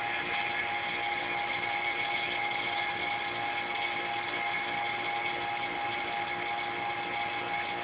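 Vacuum pump running steadily with a constant hum, pumping the air out of a bell-jar chamber so the water inside boils at room temperature.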